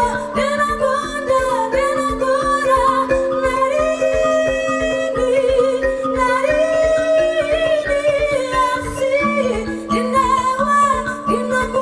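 A woman singing with a live band: guitar and a steady low beat under her voice.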